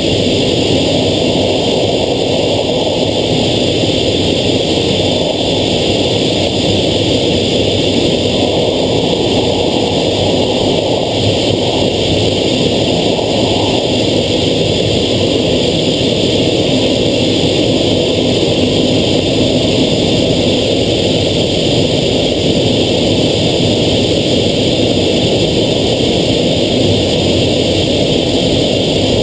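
Steady jet engine and rushing-air noise inside the cockpit of an F/A-18 fighter on approach to an aircraft carrier, holding an even level with no sudden events.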